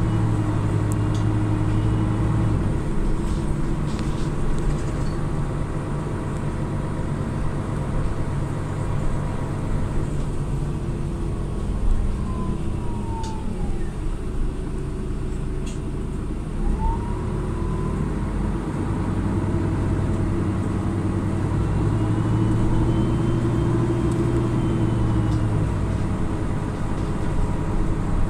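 Mercedes-Benz O530 G Citaro articulated bus heard from inside while under way: its turbocharged inline six-cylinder OM457hLA diesel and Voith DIWA automatic gearbox running. The engine is strong for the first couple of seconds, then eases off. Around the middle a drivetrain whine falls in pitch as the bus slows, rises again as it picks up speed, and the engine pulls hard again for much of the second half.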